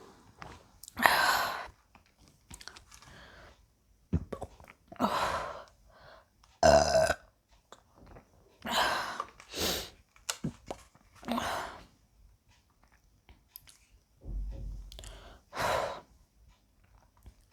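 A woman burping from drinking carbonated Sprite: a series of short separate burps with pauses between, some loud.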